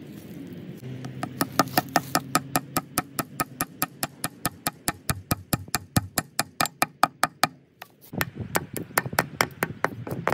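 Claw hammer tapping a glued wooden dowel into an old bolt hole in a wooden gate post, plugging it after the hinge bolts were moved. A long run of quick, even taps, about five or six a second, then a brief pause and a second run of taps near the end.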